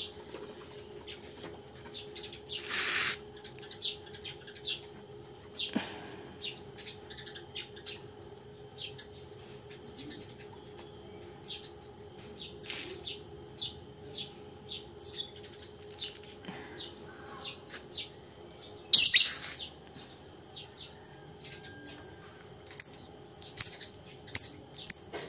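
Birds chirping: short high chirps repeated every second or so, with a quicker run of louder chirps near the end. Two louder brief scratchy noises come about three seconds in and about three-quarters of the way through.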